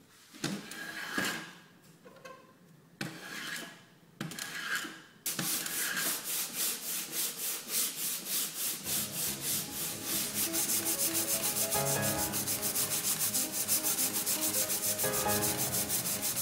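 A hand plane takes a few separate shaving strokes along a round wooden cue shaft, then from about five seconds in 60-grit sandpaper is rubbed quickly back and forth over the shaft, several strokes a second, steady and even.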